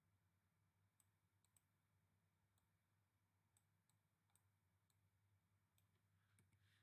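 Near silence, broken by a few faint, single computer-mouse clicks.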